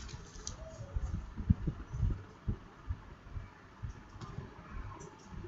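Faint, irregular low thumps and rumbles over a light hiss, coming through a video call's audio line.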